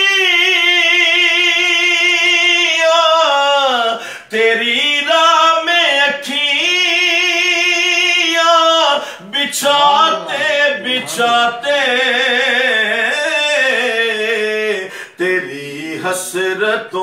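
A man singing a naat unaccompanied. He holds two long notes in the first half, then moves into quicker ornamented runs and a high wavering note with vibrato.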